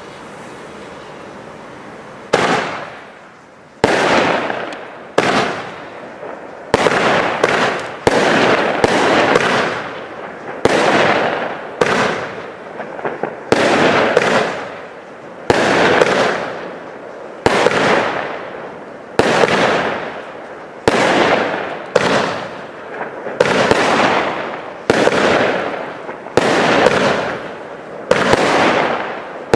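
Steffes-Ollig 25-shot, 25 mm fireworks cake: the lit fuse hisses steadily for about two seconds, then the tubes fire one after another. There are sharp bangs about one a second, sometimes closer, and each fades over about a second.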